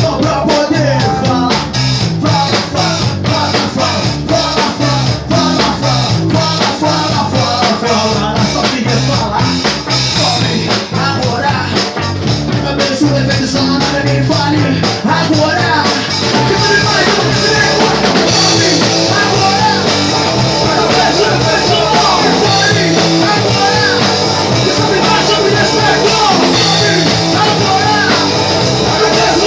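Rock band playing live: drum kit, bass and electric guitar. About halfway through the music fills out and stays steadily loud.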